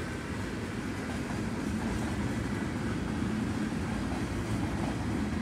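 Empty centerbeam flatcars of a CN freight train rolling past, a steady low rumble of wheels on rail.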